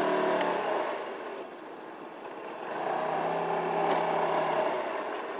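Honda Helix CN250 scooter's single-cylinder four-stroke engine running at a steady note while riding at low speed. It fades out as the throttle eases off about a second in, then comes back steady around three seconds in.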